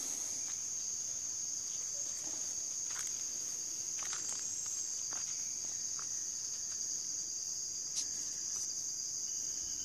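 Rainforest insect chorus: a steady, continuous high-pitched buzz, with faint scattered clicks. A second, lower insect tone joins near the end.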